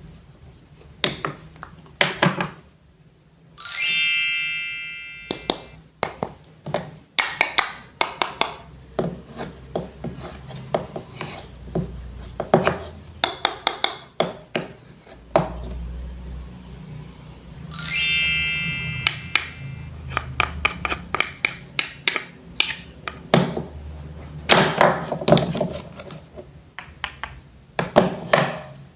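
Toy wooden knife and toy food pieces clicking and tapping on a cutting board in quick irregular strokes, with two bright ringing pings, one early on and one about halfway through, that ring out over about a second.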